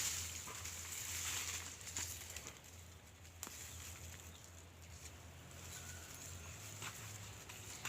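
Outdoor rural ambience: a steady high-pitched hiss with scattered small clicks and rustles.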